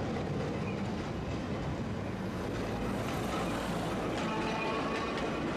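A Tosaden street tram running on its rails, a steady rumble of wheels and running gear, with faint high whining tones joining in about four seconds in.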